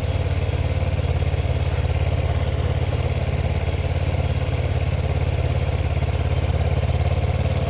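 Kawasaki ER-6n motorcycle's parallel-twin engine running steadily on a light, even throttle as the bike rolls slowly through traffic: a fast, even throb with a rush of wind and road noise over it.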